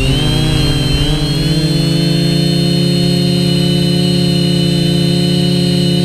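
Quadcopter's four electric motors and propellers buzzing, heard up close from the camera mounted on the craft. The pitch wavers for the first second or two as the motor speeds adjust, then settles into a steady hover-like hum.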